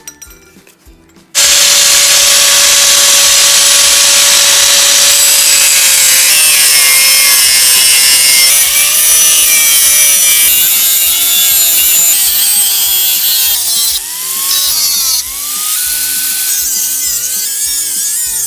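Angle grinder cutting through steel pipe, starting abruptly about a second in and loud throughout. Its steady whine dips and wavers as the disc bites into the metal, then climbs in pitch near the end as the load comes off.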